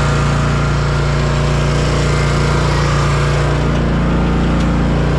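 Zero-turn riding mower's engine running steadily under load as the mower drives up off a traction board and out of the mud; the engine note shifts about three and a half seconds in.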